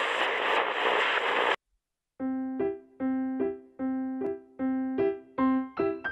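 A loud burst of hiss-like noise that cuts off abruptly after about a second and a half. After a short pause, light piano-like keyboard music starts, with evenly spaced notes bouncing between a low note and higher ones.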